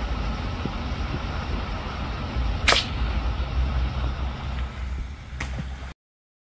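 Steady low outdoor rumble, with one sharp crack about two and a half seconds in and a fainter click near the end, then the sound cuts off abruptly.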